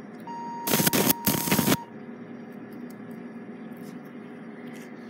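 Electrosurgical unit (electric scalpel) in coagulation mode at setting 15: its steady activation tone sounds for about a second and a half while the electrode sparks against the simulated tissue in two loud crackling bursts, even at this coagulation setting.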